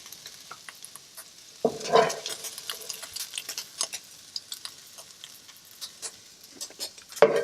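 Kitchen items being handled by feel: scattered small clicks and taps, with a louder clatter about two seconds in and another near the end.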